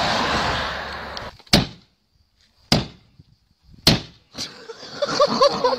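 Road traffic noise for about a second, then three sharp blows about a second apart as a stone is struck against a BMW saloon's side window, the glass not breaking, followed by a fainter knock.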